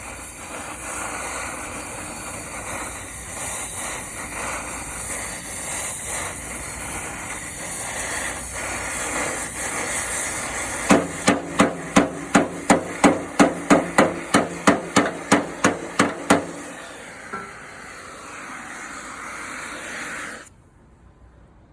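A steady hiss, then a run of about seventeen hammer blows on steel plate, roughly three a second, each with a short metallic ring, from sheet-steel reinforcement being hammered into a corroded old Vespa floor. The hiss cuts off suddenly near the end.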